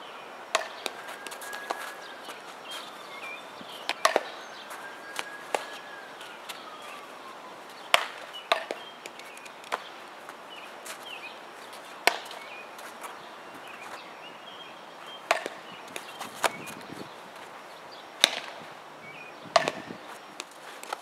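Sharp cracks and smacks of softball practice, a bat hitting balls and balls popping into gloves, every few seconds over an outdoor hiss, with faint chirps in between.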